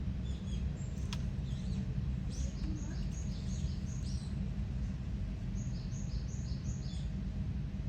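A small bird sings two runs of short, high chirps, a few notes a second, the first about two seconds in and the second near the end, over a steady low rumble of outdoor background noise.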